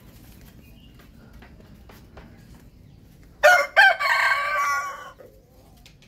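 Rooster crowing once, about three and a half seconds in: two short opening notes, then a longer drawn-out note that fades out after about a second.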